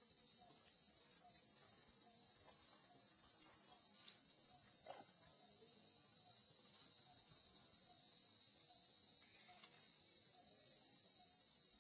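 Steady high-pitched drone of an insect chorus, such as cicadas or crickets, with a faint low note pulsing about twice a second beneath it.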